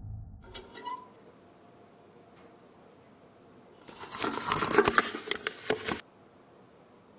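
A dense burst of rustling and crackling, full of small clicks, lasting about two seconds from a little past the middle and cutting off abruptly. A few faint clicks and a short tone come about a second in.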